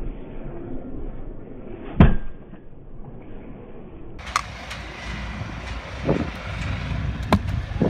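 Stunt scooter landing hard on concrete with one loud clack about two seconds in. Later come several lighter clacks and knocks of scooter wheels and decks on the concrete over a low rumble.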